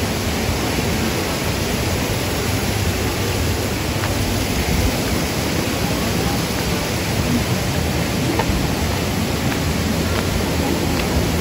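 Steady rushing of water from a waterfall, an even, unbroken roar.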